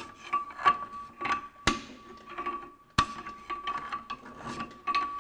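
A pry bar levering a Ferguson TE20's engine round by the flywheel ring gear in fourth gear, turning the drivetrain through to the back wheel. It gives irregular metallic clicks and knocks, with two sharper clacks a little over a second apart near the middle. This is a check that the rebuilt clutch is engaging.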